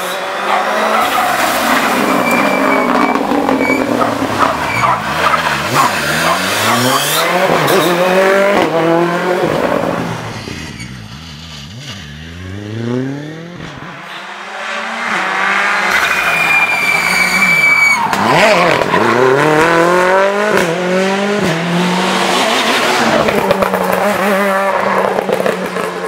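Rally cars racing past on a tarmac stage, their engines revving high and dropping through quick gear changes as they brake and accelerate. The sound eases off for a few seconds near the middle before the next car comes through just as loud.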